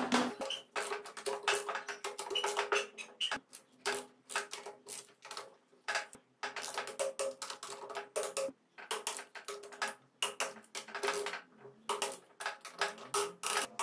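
Ratchet of a torque wrench clicking in quick, irregular bursts as the cylinder head bolts are tightened down. Background music plays underneath.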